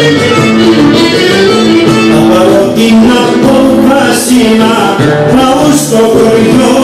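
Loud dance music with singing over instruments, playing steadily for a line dance.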